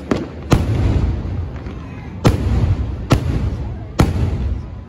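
Aerial firework shells bursting close overhead: a small bang and then four loud sharp bangs, each trailing off in a low rumble.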